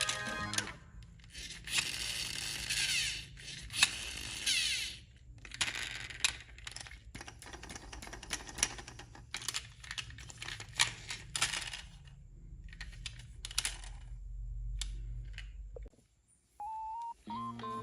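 Radio-controlled model machine working: bursts of small electric motor and gear whirring with frequent plastic and metal clicks and rattles over a low steady hum.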